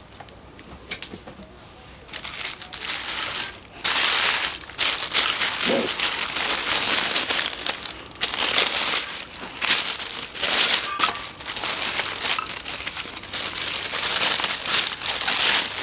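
Packaging crinkling and rustling in irregular bursts as it is handled and pulled off to unwrap grinders; quiet for about the first two seconds.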